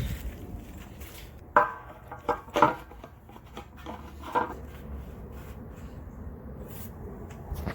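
Metal motorcycle fuel cap being fitted to the tank filler by hand: a few sharp metallic clinks with a short ring, a softer click a little later.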